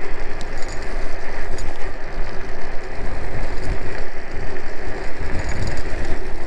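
iScooter iX4 off-road electric scooter riding along a paved path: tyre rumble and wind buffeting on the microphone, with a faint steady motor whine under it.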